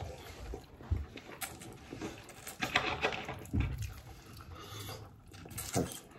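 Sounds of people eating at a table: chewing and mouth noises with scattered light knocks, clicks and rubbing of plates and cutlery, busiest about three seconds in.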